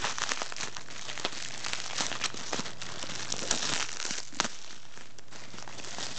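Plastic packaging and bubble wrap crinkling and rustling in a dense run of irregular crackles as hands peel tape off a small plastic bag.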